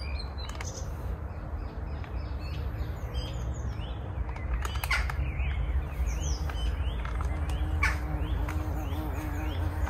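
Small birds chirping and calling again and again over the steady rush of a shallow stream.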